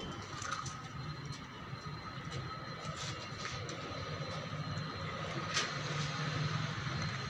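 Steady low background hum with a faint high whine, broken by a few sharp clicks.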